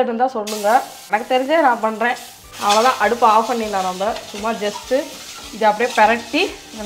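Egg frying in oil in a pan and being stirred, with a steady sizzle. Louder wavering pitched tones run over it.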